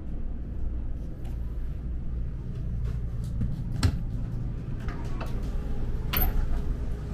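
Low, steady rumble of a standing train, with a sharp click about four seconds in and another just after six seconds as a hand works the latch and slides the compartment's glass door.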